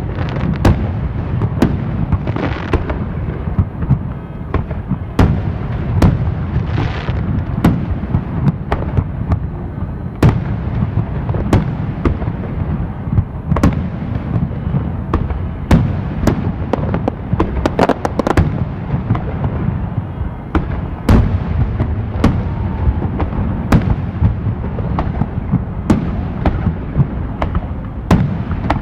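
Fireworks going off continuously: sharp bangs at irregular intervals over a steady low rumble of distant bursts, with a dense cluster of crackling reports about two-thirds of the way through.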